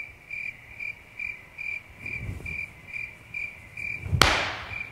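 An insect-like chirp repeating evenly, a little over twice a second. About four seconds in comes a single sharp slap or clap, the loudest sound here.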